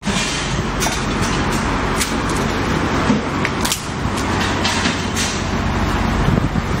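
Garbage truck's engine running steadily at a standstill, with a few sharp metallic clanks and knocks as it is loaded from metal street bins.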